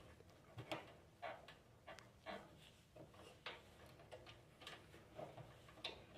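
Faint, irregular clicks and taps, about one or two a second, of small heater parts and fittings being handled and pushed into place.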